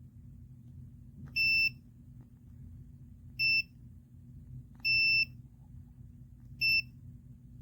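Four short, high electronic beeps of uneven length, about one and a half to two seconds apart, over a steady low hum.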